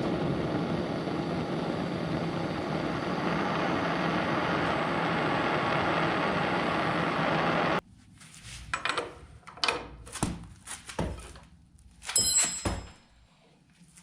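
A loud steady mechanical noise that cuts off suddenly about eight seconds in, followed by scattered knocks and clinks of metal parts, with one short metallic ring near the end.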